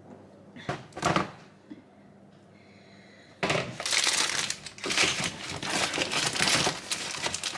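Wrapping being handled and crinkled: two short rustles about a second in, then steady crinkling and crackling from about halfway through.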